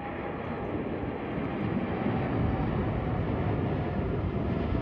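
Boeing 747-8 Freighter's four GEnx turbofans at climb power just after takeoff: a loud, steady jet rumble with a faint whine, swelling over the first two seconds as the aircraft passes.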